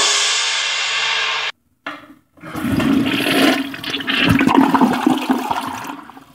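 A dense, steady wall of noise music cuts off abruptly about a second and a half in. After a short silence a toilet flushes: rushing water that swells and then fades away near the end.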